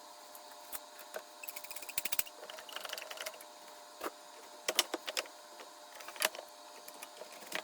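Quiet woodworking assembly sounds: scattered clicks and knocks of plywood parts and hand tools. A brief run of rapid clicking comes about a second and a half in.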